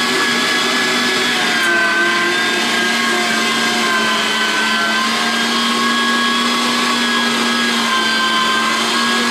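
Electric meat grinder running steadily, mincing chicken: a constant motor hum and whine.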